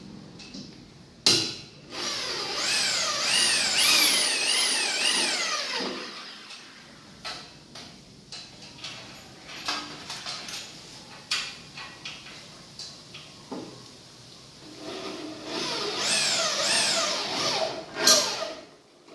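Electric hand drill working into a steel frame in two long spells, its whine rising and falling over and over as the trigger is eased on and off. In between come sharp clicks and light metal knocks, the loudest about a second in and near the end.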